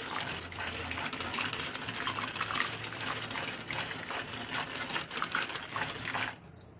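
Wooden mathani (hand churner) twirled back and forth in a bowl of thin besan batter, a fast steady clatter that stops about six seconds in. It is breaking up the lumps of gram flour in the batter.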